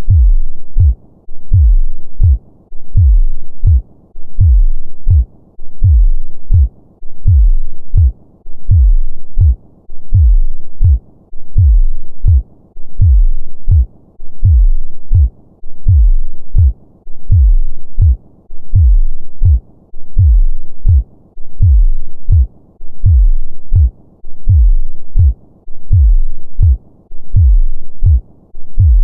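Normal human heartbeat: low thumps repeating at an even pace of a little over one beat a second.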